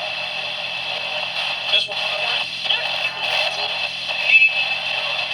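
NOAA Weather Radio receiver putting out steady static hiss, with a faint, broken computer-synthesized voice under it. There are brief dropouts about two seconds in and again near four seconds.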